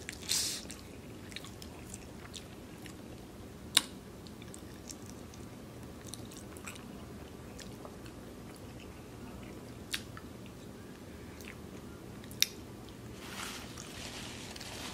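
Quiet, close-up chewing and mouth sounds of a person eating, with a few sharp wet clicks scattered through.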